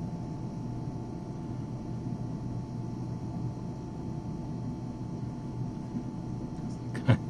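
Steady low hum of a 130-foot Westport motor yacht's engines and thrusters running as it manoeuvres, with one short sharp sound that falls in pitch near the end.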